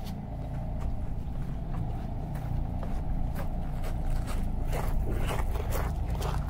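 Footsteps and scuffing of people walking through a dark room, irregular clicks and scrapes that grow busier near the end, over a steady low rumble.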